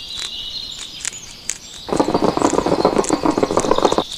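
High chirping calls throughout, with a loud, rapid buzzing that starts about two seconds in and stops just before the end.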